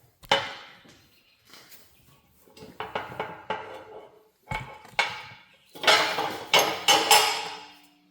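Metal parts clanking and rattling: a series of sharp knocks with a short ring, sparse at first and coming thick and fast for over a second near the end.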